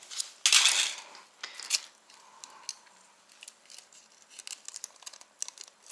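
Handling noises from work on loose wiring: a short burst of rustling about half a second in, then scattered small clicks and taps.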